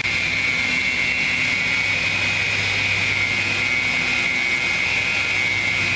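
Industrial woodworking machine running steadily, a constant high whine over a low hum.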